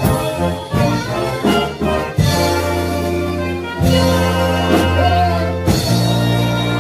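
A big band playing a jazz number: trumpets and trombones with bass and drums, punctuated by sharp accented hits from the whole band.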